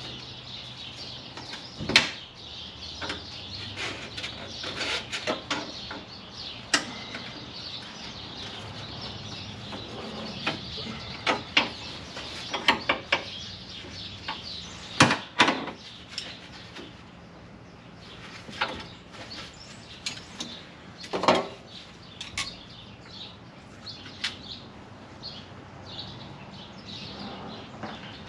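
Hand tools clicking and knocking against metal at irregular intervals while a rusted brake line fitting is worked loose, over a steady background hiss.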